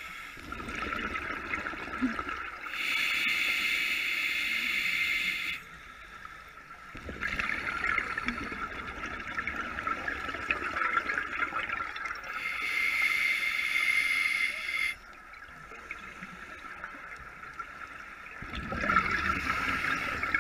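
Scuba diver breathing through a regulator underwater: two long hissing inhalations, about ten seconds apart, each followed by a gurgling rush of exhaled bubbles.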